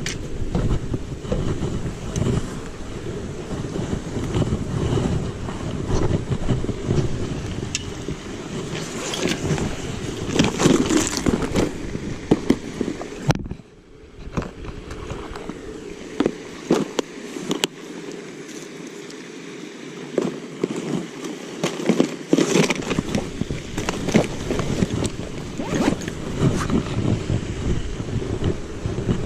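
Wind buffeting the microphone, an uneven low rumble with scattered clicks and scrapes. The sound drops out sharply for a moment about halfway through.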